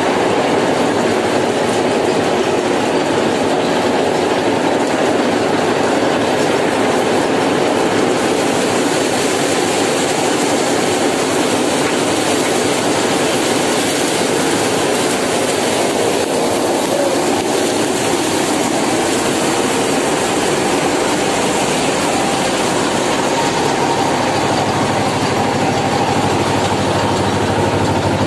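Tractor-driven paddy thresher running at working speed, threshing rice paddy as it is fed into the hopper: a loud, steady mechanical rattle. The tractor's diesel engine runs steadily underneath, its low hum more prominent in the last few seconds.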